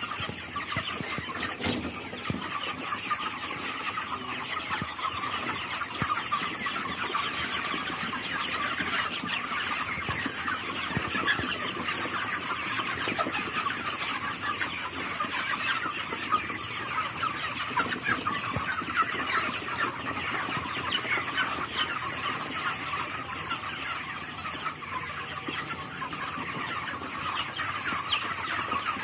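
A flock of month-old broiler chickens in a shed calling all together: a continuous dense chatter of many overlapping short cheeps and clucks.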